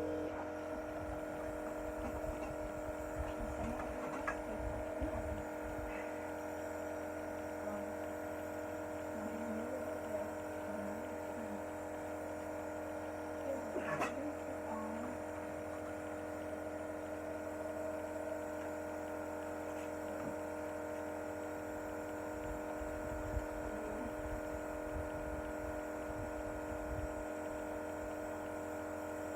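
Electric compressor nebulizer running with a steady hum while it delivers the inhaled treatment. There is a brief faint sound about fourteen seconds in.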